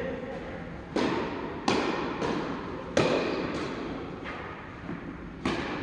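Tennis ball rally: sharp racket strikes, the loudest about a second in, near two seconds, about three seconds in and near the end, with fainter ball bounces between them, each hit ringing briefly.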